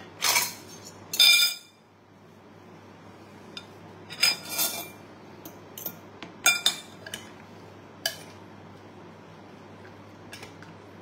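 Metal fork and spoon clinking and scraping against a ceramic bowl of rice in scattered sharp knocks. The loudest knock, about a second in, rings briefly.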